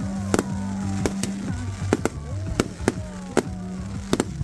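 Fireworks going off in sharp, irregular bangs, several a second, over music with a steady stepping bass line.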